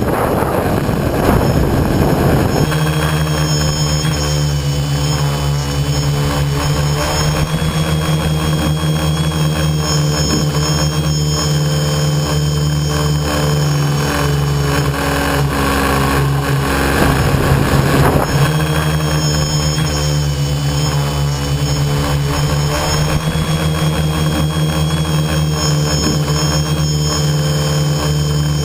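Tricopter's electric motors and propellers running with a steady hum, heard from its onboard camera. Rushing wind noise covers the hum for the first couple of seconds and again briefly about two-thirds of the way through.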